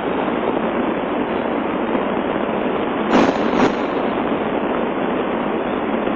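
Magnetar hyperflare data turned into sound: a steady, dense crackle, with two louder pops a little after the middle.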